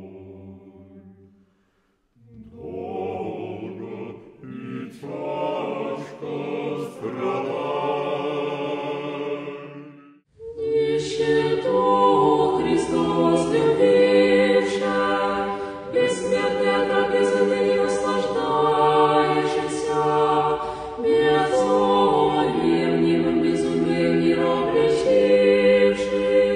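Choir singing a cappella in a slow, sustained church chant, in the style of Orthodox sacred singing. A quieter, thinner passage breaks off about ten seconds in, and fuller, louder singing with many held voices follows.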